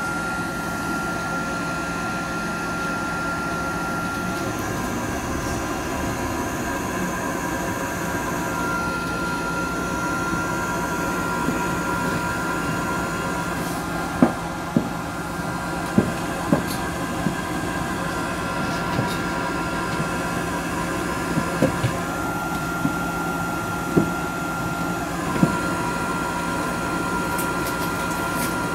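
Steady running noise of a moving vehicle heard from inside, a low hum under a high steady whine. About halfway through, a series of sharp knocks and rattles begins, roughly ten over ten seconds.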